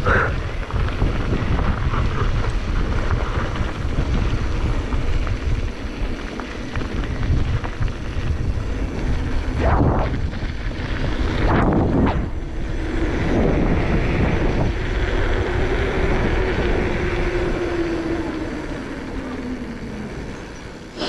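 Wind buffeting the microphone over the rumble of a mountain bike rolling down a dirt trail, with two short loud bursts about ten and twelve seconds in. From about thirteen seconds a steady tone rises and then slowly falls in pitch before fading.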